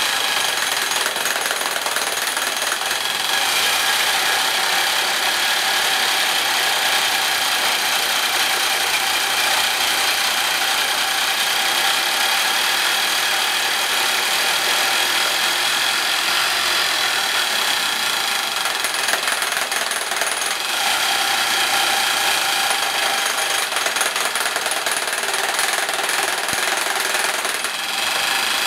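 Percussive rock drill of a home-built twin-boom drilling rig, hammering steadily into rock while drilling a blast hole. The drilling runs continuously, with a dense clatter and a steady high whine over it.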